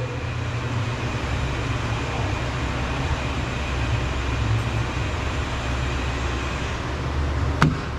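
A steady low rumble, with a single sharp click near the end as the Dodge Journey's interior door handle snaps back into place.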